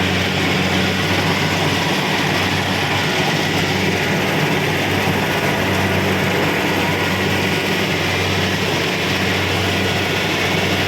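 Kubota DC-70 Pro combine harvester working: a steady engine drone with a dense rushing mechanical noise over it, unchanging throughout.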